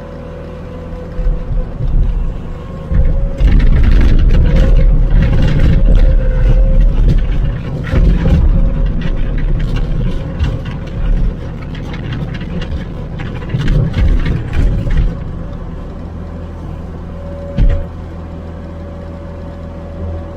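Skid steer engine running, loud and uneven with clattering and rushing through the middle, then settling into a steady run with a faint steady whine.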